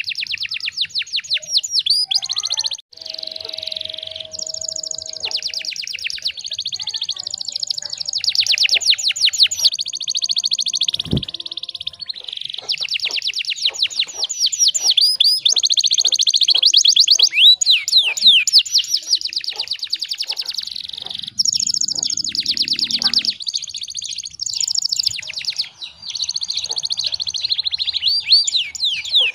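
Domestic canary singing a long, nearly unbroken song of fast high trills and rolls with only brief pauses. A single low thump sounds about eleven seconds in.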